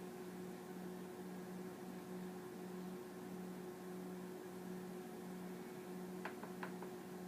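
Steady electrical hum, with a lower tone pulsing on and off about every three quarters of a second, and a few sharp clicks near the end.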